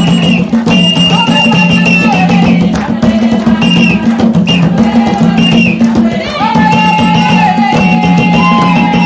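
Traditional-style dance music with percussion, long held high notes over a steady low bass.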